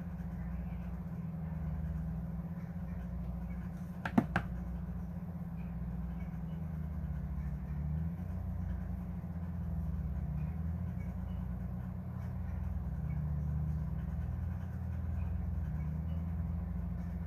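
Steady low rumble that swells and fades slowly, with two sharp clicks in quick succession about four seconds in.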